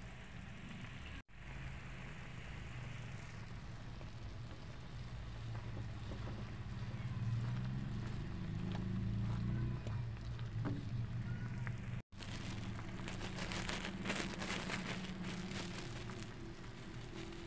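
Food sizzling and crackling in a cooking pan over a low steady hum. After a brief dropout about twelve seconds in, the crackling becomes denser and brighter.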